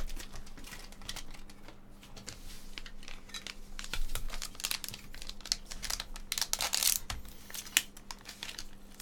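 Red metallic foil card pack crinkling in the hands and being torn open, a run of irregular sharp crackles that come thickest about a third of the way in and again toward the end.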